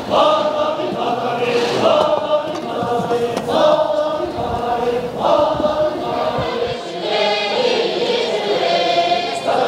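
A large choir of stage performers singing, in held phrases of a couple of seconds each.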